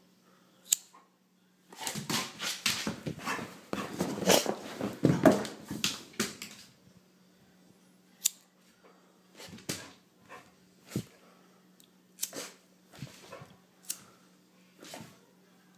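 A puppy, frightened by a lighter, making a flurry of agitated sounds for about five seconds starting near the two-second mark, then a string of scattered short sounds.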